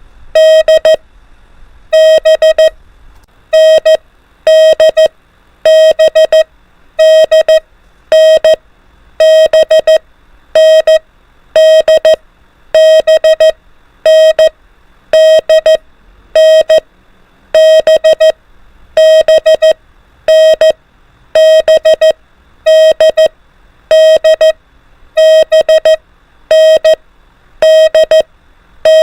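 Morse code sent as a steady beeping tone of about 650 Hz at 24 words per minute: quick clusters of dots and dashes, each cluster a letter, with short gaps between them.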